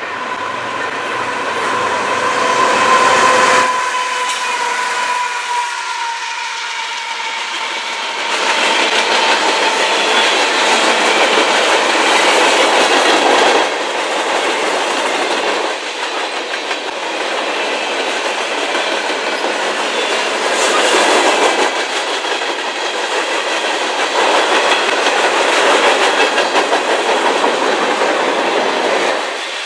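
CN freight train cars rolling past with the clickety-clack of wheels over rail joints. A high tone slowly drops in pitch during the first few seconds, and the sound changes abruptly a few times.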